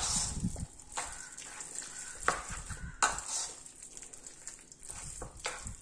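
Metal spoon stirring a thick, wet batter of ragi flour, sprouted moong dal and chopped vegetables in a bowl, a steady squelching mix with a few sharper clicks along the way.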